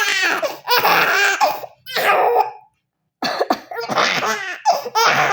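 A woman's playful fake coughs and a baby's laughter, in a string of short bursts with a brief silent gap a little before halfway.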